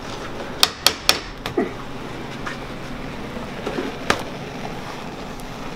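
Sharp clacks from a wall-mounted metal candy hook as a mass of hot orange hard candy is worked on it and lifted off, three quick ones close together, then a single knock about four seconds in. A steady low hum runs underneath.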